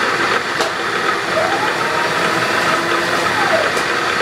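Bridgeport milling machine running with a spot drill turning in its chuck: a steady whir and hum, with two faint clicks, one about half a second in and one near the end.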